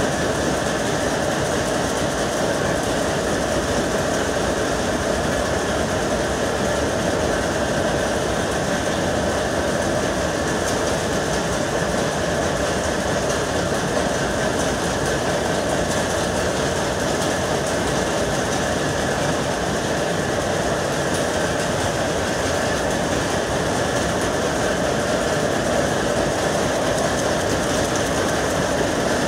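Jacquard power looms weaving saree fabric: a loud, steady, rapid mechanical clatter that keeps up without a break.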